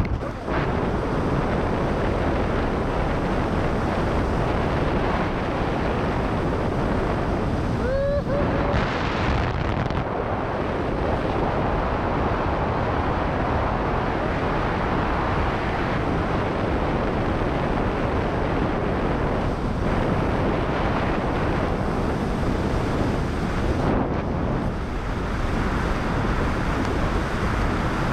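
Steady, heavy wind noise on the microphone of a skydiver's wrist-mounted camera, from the air rushing past it during the jump.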